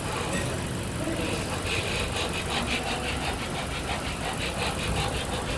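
2023 Honda Civic running, with a rapid even ticking of about four ticks a second that begins about two seconds in.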